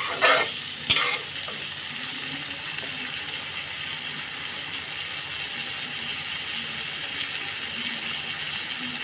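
Sliced potatoes in oil with a little added water sizzling and bubbling steadily in a pan. A spatula knocks and scrapes against the pan twice in the first second.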